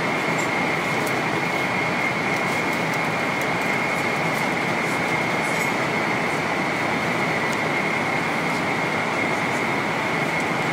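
Steady in-flight cabin noise of a Boeing 777-300ER: an even rush of air and engine noise with a steady high whine.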